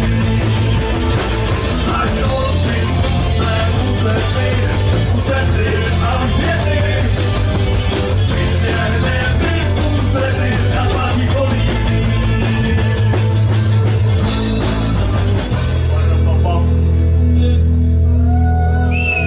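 Live rock band playing loudly, with electric bass, electric guitar and drums; about three-quarters of the way in the busy playing gives way to a long held chord.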